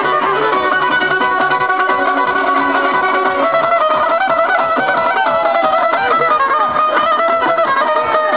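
Loud music led by a plucked string instrument playing fast runs of notes over a steady low pulse.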